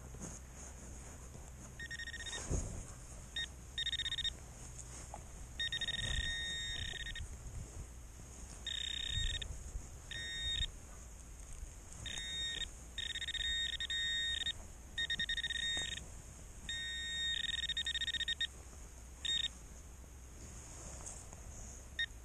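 Garrett pinpointer sounding its tone in short, irregular stretches, on and off and sometimes held for a second or more, as its tip is moved around the dug soil and comes near the metal target. A few faint knocks from handling the soil.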